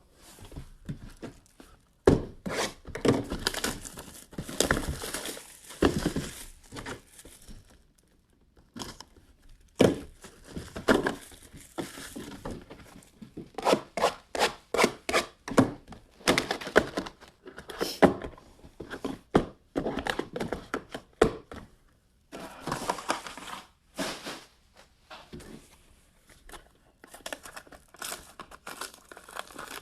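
Plastic shrink wrap being torn and crumpled off small cardboard trading-card boxes, in irregular crinkling bursts with sharp clicks and occasional thunks of the boxes being handled.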